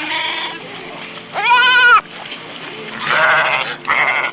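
Goat bleating several times, the loudest a long, wavering bleat about a second and a half in.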